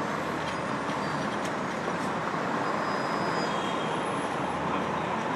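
Steady city street noise with a Seagrave fire engine's diesel engine running as it rolls slowly through an intersection, with no siren.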